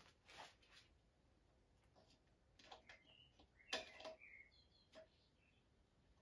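Near silence: a few faint clicks and scrapes of a battery cable clamp being tried against the outboard's metal for a ground, with a few short, faint high chirps near the middle.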